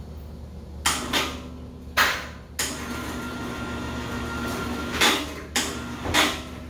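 Heavy steel smoker tank with its firebox being rolled over on its stand: six loud metal clunks and bangs, with a steady mechanical hum running between them.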